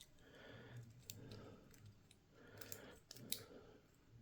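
Faint metallic clicks and light scraping from a euro lock cylinder and small tools being handled, a few sharp ticks spread through.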